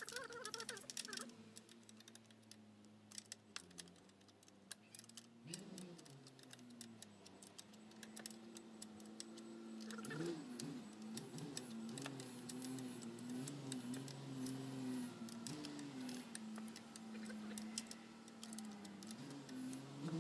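Light metallic clicks and taps of an open-end wrench on a scooter's exhaust mounting bolts as they are tightened, with a low hum underneath that shifts in pitch a few times.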